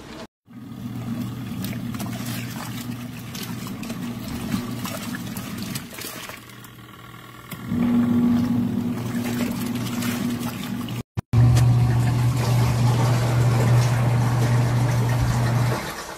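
Portable mini washing machine's motor humming steadily with water churning and trickling, in sections cut together. After a break about eleven seconds in, the hum is louder.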